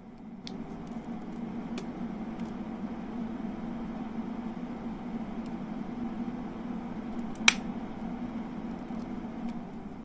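Two PC cooling fans in a homemade cooler-box air cooler running with a steady hum that gets louder about half a second in. A few sharp clicks from the button of the fans' handheld speed controller, the loudest near the end.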